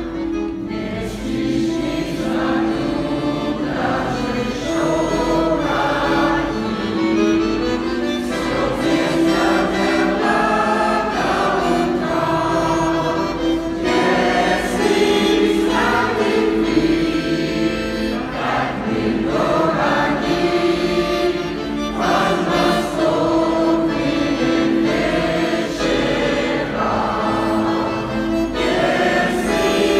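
Large mixed amateur choir of men and women singing a Russian song together, accompanied by a bayan (Russian button accordion) holding sustained notes beneath the voices.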